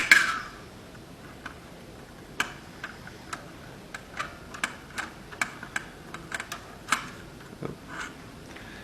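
Irregular small metal clicks and taps of an Allen key being worked on a screw in the spreader block of an industrial buttonhole sewing machine, with one sharp click right at the start.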